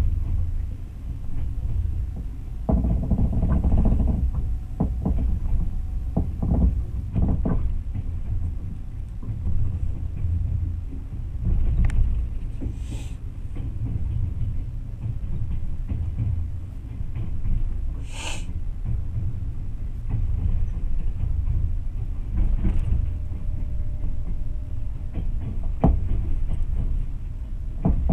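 Train running along the track, heard from on board: a steady low rumble with scattered knocks from the wheels over the rails, and a brief hiss about two-thirds of the way through.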